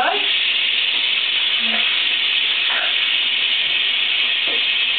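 Shower spray running steadily for an Amazon parrot's bath: an even hiss of falling water.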